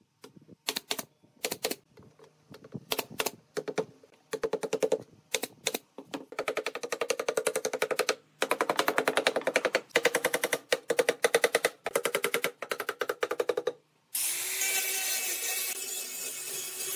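A pneumatic brad nailer fires a few separate shots into pine slats, then a wooden mallet raps the slats in fast runs of many strikes. About fourteen seconds in, an angle grinder with a sanding disc starts and runs steadily against the wood.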